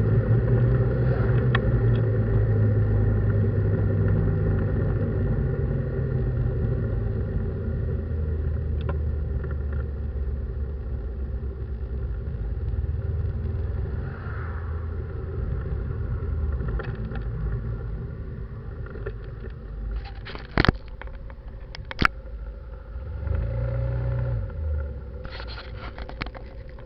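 Ford F-150 pickup driving, heard from inside the cab: steady engine hum and tyre noise that slowly grows quieter. Two sharp knocks come about twenty seconds in, then the engine note rises briefly near the end.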